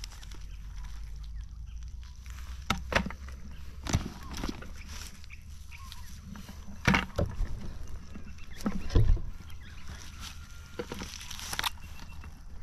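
Crinkling, clicks and knocks of a mesh crayfish net and dry grass being handled while red claw crayfish are picked out, with a couple of louder thumps in the second half over a steady low rumble.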